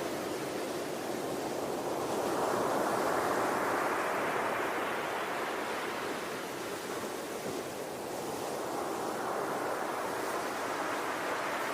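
Ocean surf: waves breaking and washing in a slow rise and fall, one swelling from about two seconds in and easing off, the next building near the end.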